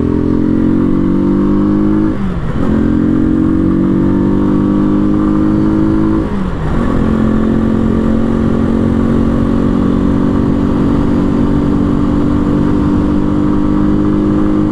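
Janus Phoenix 250's single-cylinder four-stroke engine pulling hard as the motorcycle accelerates. Its pitch climbs and falls sharply with an upshift about two seconds in and again about six seconds in. After that it settles into a steady, slowly rising note at cruising speed.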